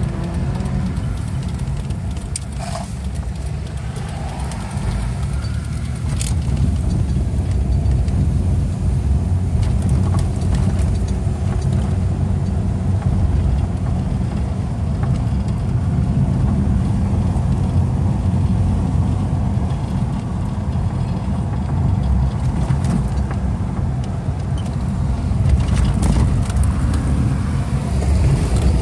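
Steady low rumble of engine and tyre road noise inside a moving car's cabin, with a few brief light clicks or rattles.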